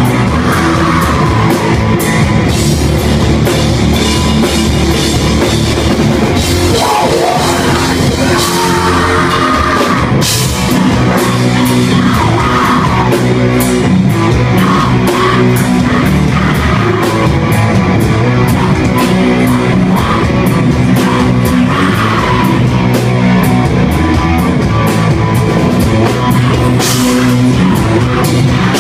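Sludge metal band playing live and loud: heavily distorted guitar and bass, a pounding drum kit, and harsh vocals screamed into the microphone.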